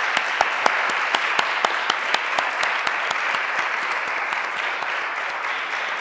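Audience applauding: a roomful of people clapping steadily, with a few sharp individual claps standing out in the first couple of seconds.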